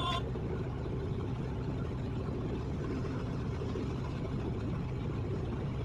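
Excavator's diesel engine running steadily at an even, low rumble.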